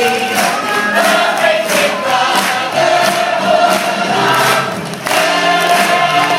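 Theatre audience clapping and cheering over the pit orchestra's curtain-call music, with the claps coming in a steady beat.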